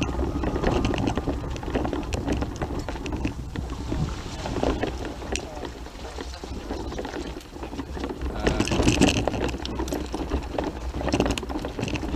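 Loose stones and gravel crunching and clicking underfoot and under wheels on a rocky track, over a steady low rumble.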